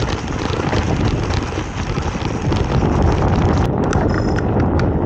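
Mountain bike riding fast down a rough dirt singletrack: the bike rattles and clatters over the bumps, with wind buffeting the camera microphone. A little over three and a half seconds in, the wind hiss drops away as the bike enters a tunnel.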